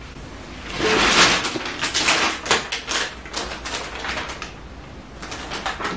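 Packaging being handled and unwrapped, a busy run of irregular crinkling crackles and taps that fades out near the end.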